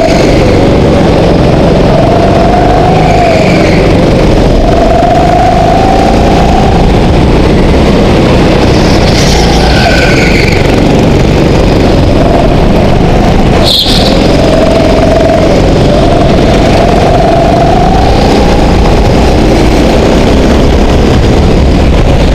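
Go-kart engine heard from onboard, loud and close, its pitch climbing and falling again and again every four to five seconds as the kart accelerates and slows through the corners. There is a short click about fourteen seconds in.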